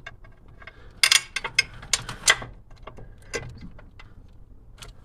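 Metal clicks and knocks as a dogbone relocation bracket is set in place on the engine and fitted over its bolts. A cluster of four sharp knocks comes about a second in, and a few lighter clicks follow.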